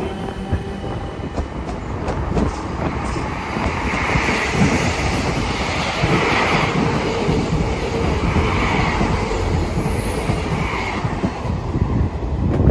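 Electric passenger train running along the track: steady wheel and rail rumble with rail joints clattering, and a few high wheel squeals through the middle. The sound cuts off suddenly at the end.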